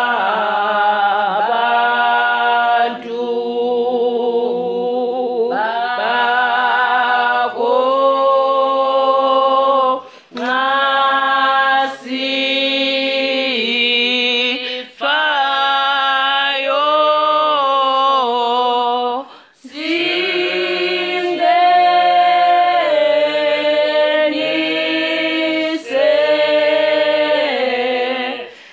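A group of voices singing a church hymn unaccompanied, in long held phrases with brief pauses for breath between them.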